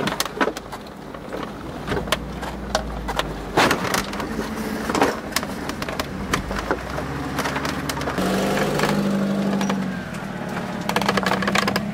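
Off-road vehicle engine running while driving over rough ground, with repeated knocks and clatter; the engine gets louder and steadier for about two seconds around eight seconds in.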